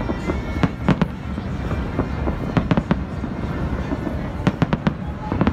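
Aerial firework shells bursting overhead: an irregular run of sharp bangs, several coming in quick clusters.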